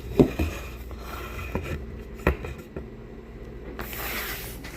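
Trim pieces being handled: a few light knocks and taps, the first the loudest, then a brief rasping rustle near the end.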